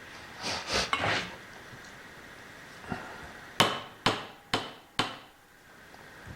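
Hammer striking metal: four sharp taps about half a second apart, each with a short metallic ring, after a few seconds of parts being handled.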